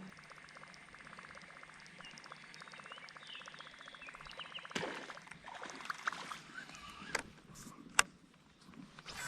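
Fishing reel being wound in a rapid, even ticking for a few seconds, followed by a few sharp knocks.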